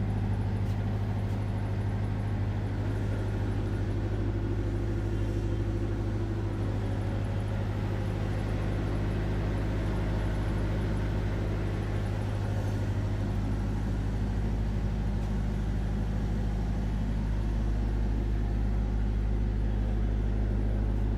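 An engine running steadily at idle: a constant low hum that does not change.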